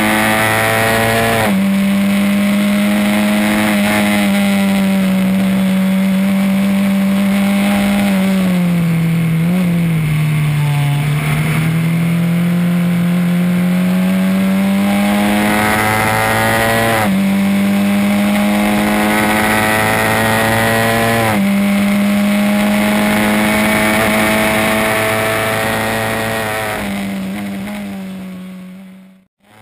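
Ford Kent 1600 four-cylinder engine of a Swift SC92 Formula Ford racing car, heard on board at full throttle: the pitch climbs steadily and drops sharply with each of three upshifts, sags and recovers as the car slows for a bend in the middle, then fades out near the end.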